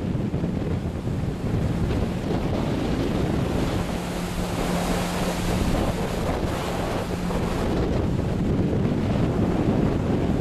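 Sea surf breaking and washing in a steady roar, with wind buffeting the microphone. The surf swells about halfway through, and a faint low steady hum runs under it.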